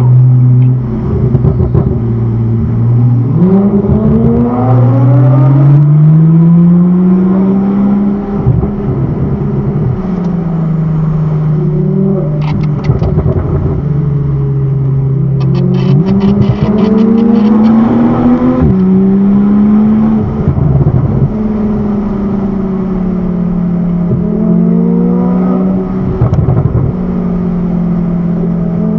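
Porsche 911 flat-six engines pulling hard up through the gears, heard from inside the car: the engine note rises, then drops back at each shift, several times over. A patch of short, sharp crackles comes about halfway through.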